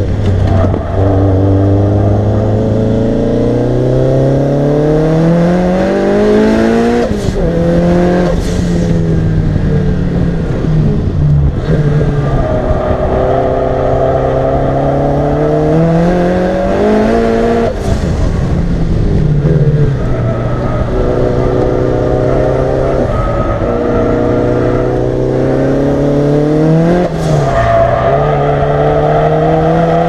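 Turbocharged four-cylinder engine of a tuned Lancia Delta Integrale 16v at full throttle on track. The revs climb in long pulls through the gears, each upshift a brief break with a sharp crack, and the engine eases lower between the pulls.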